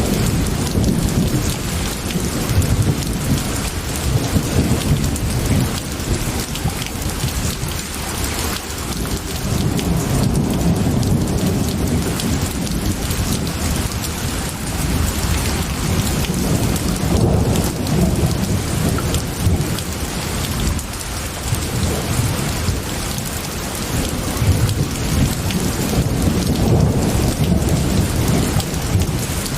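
Steady heavy rain with low rolling thunder that swells and fades several times.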